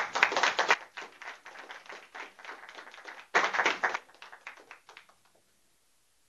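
A group of people clapping, loudest at the start and again about three seconds in, then thinning out and stopping about five seconds in.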